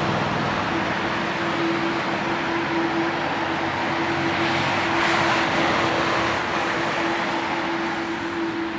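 Boeing 787-8 Dreamliner's GE GEnx-1B turbofans running at low taxi power: a steady jet hiss with a constant hum, swelling briefly about five seconds in.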